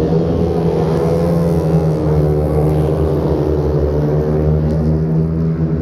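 Several grass track racing motorcycles, each with a single-cylinder engine, running hard together as the pack races past. Their notes overlap into one steady, loud drone that drifts slightly in pitch.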